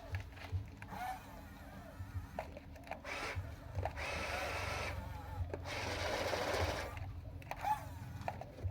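Small electric motors of a radio-controlled toy construction vehicle whirring in two spells of about a second each, midway through, with scattered small clicks around them.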